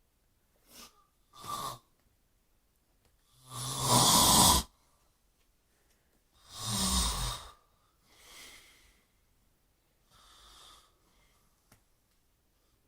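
A man snoring in his sleep: a string of separate snores, each up to about a second long, the loudest about four and seven seconds in, with fainter ones before and after.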